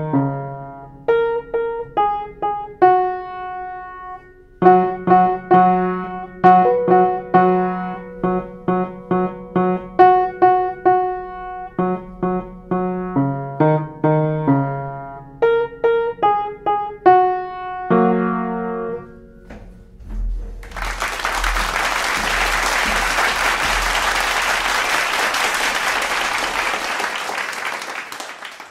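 Upright piano played four hands: a piece of short, separate notes and chords that ends on a held chord about nineteen seconds in. Then comes several seconds of steady applause, which stops just before the end.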